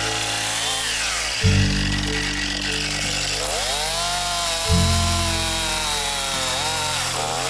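Background music with low notes changing about every three seconds, over a Stihl MS261 two-stroke chainsaw cutting wood, its pitch sagging and rising as the chain takes load.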